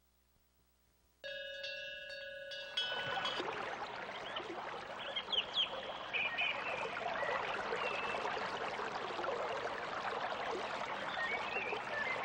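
A single bell-like chime rings about a second in and dies away, then a running stream takes over, with a few high chirps over the water.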